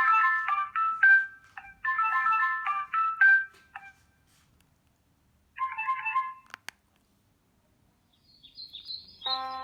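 Doro 1360 mobile phone playing ringtone previews one after another. A short melody plays twice, a brief different tune is followed by a click, and near the end high chirps lead into a new, fuller tune.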